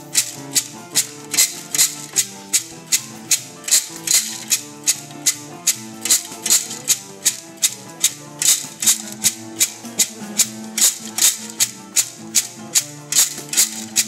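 Tin-can maracá rattles shaken in a steady beat, about three sharp shakes a second, keeping time for a Santo Daime hymn, over held instrumental notes.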